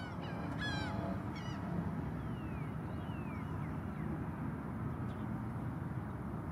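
Osprey giving three short, high, downslurred whistled calls in the first second and a half, followed by a few fainter descending whistles. A steady low rumble runs underneath.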